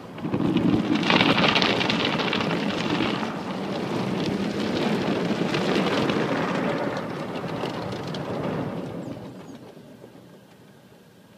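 Car wash water jets spraying onto a car: a sudden loud rush of water drumming on the body that starts right at the beginning, holds for about nine seconds, then fades away.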